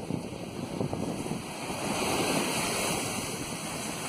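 Surf breaking and washing up a sandy beach, with wind buffeting the microphone. The rush of the wash swells about two seconds in, then eases.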